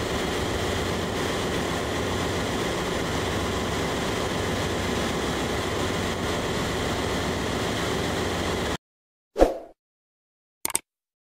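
Steady din of a ship's engine room: machinery running with a constant hum and hiss. It cuts off suddenly about nine seconds in, followed by a short whoosh and a brief click from a subscribe-button animation.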